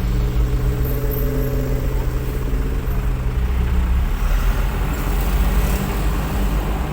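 A heavy diesel engine running steadily with a low rumble; its note shifts about halfway through.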